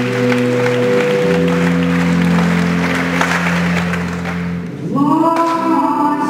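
Live concert music: low chords hold steady under audience applause and cheering for about the first five seconds. Near the end a woman's singing voice slides in and holds a note over the accompaniment.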